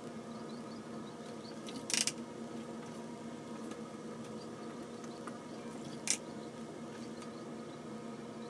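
Two short scratchy swishes of a watercolour brush dragged across cold-press paper, about two seconds in and again about six seconds in, over a steady low room hum.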